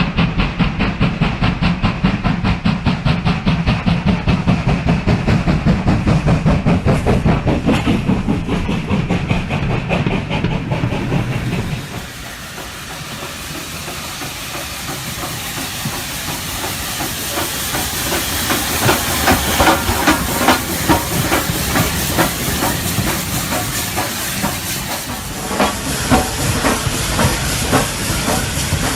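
Model steam train running on the layout: a low rumble under a fast, even run of track clicks for about twelve seconds, then a hissing steam locomotive sound with quick, repeated chuffs.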